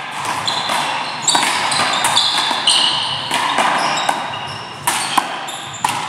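Sneakers squeaking over and over on the court floor as players shuffle and cut, with a few sharp knocks about five to six seconds in.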